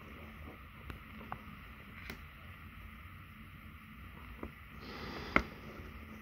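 Handling noise of a cardboard watch box being held and moved about: a few light taps and knocks, the loudest near the end, over a steady low rumble.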